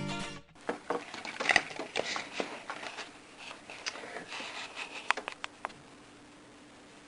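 The last of a music piece cuts out, then irregular light clicks, knocks and rustling, like objects being handled, until about six seconds in. After that only a faint steady hum remains.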